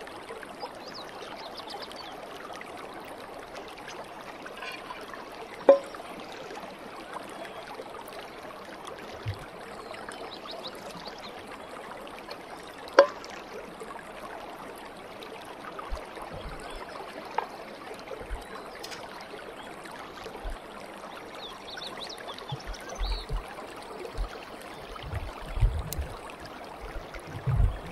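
Steady flow of nearby stream water, an even wash of noise. It is broken by two sharp clicks, one about six seconds in and one about thirteen seconds in, and by soft low knocks near the end.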